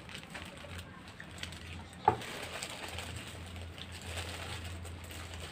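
Quiet eating sounds: burgers being chewed and paper burger wrappers rustling, over a steady low hum. A brief sharp sound comes about two seconds in.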